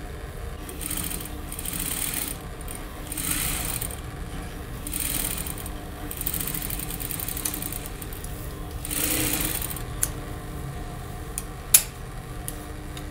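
JAKI industrial lockstitch sewing machine stitching a casing channel for plastic boning, run in about five short bursts with pauses between them as the fabric is guided. Near the end come two sharp clicks, the second one loud.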